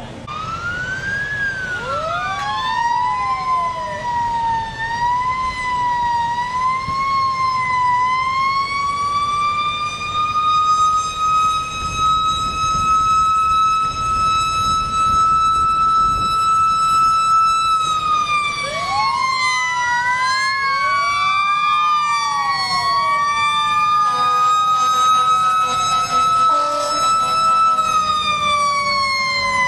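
Several fire truck sirens wail at once, their pitches rising, falling and crossing one another. About halfway through they hold a steady high wail for several seconds, then drop and wind up again.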